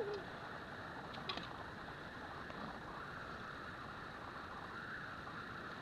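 The drawn-out end of a cat's yowl, falling in pitch, cuts off right at the start. After it come steady background hiss and a couple of faint clicks about a second in.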